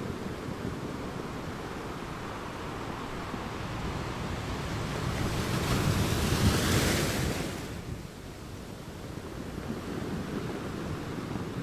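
Ocean surf: a steady rush of breaking waves that swells into a louder wash about five seconds in, peaks, then falls away.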